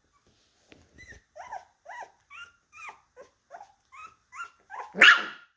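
Young Labradoodle puppies whining in a run of short, squeaky, pitched cries, about two or three a second, ending with a louder yelp about five seconds in.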